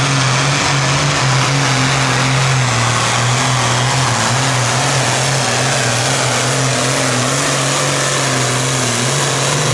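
John Deere classic super stock pulling tractor's turbocharged diesel engine running flat out under load while it drags the sled. It makes a loud, steady drone whose pitch holds nearly level, wavering only slightly.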